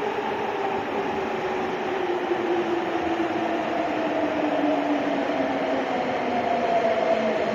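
Nagoya Municipal Subway Tsurumai Line train running, a steady rumble under two whining motor tones that fall slowly in pitch, typical of the train slowing down.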